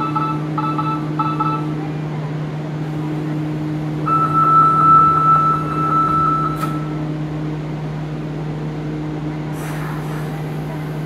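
Nanakuma Line subway train at a platform, its doors and the platform screen doors closing: a quick series of door chimes, then a steady electronic warning tone for about two and a half seconds that ends in a single thud as the doors shut. A steady low hum from the standing train runs underneath, and a hiss rises near the end.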